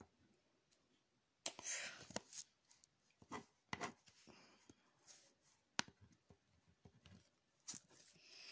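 A pen scratching on paper in short strokes, the longest about a second and a half in, with sharp ticks of the tip on the page. Near the end the sheet of paper is moved with a papery rustle.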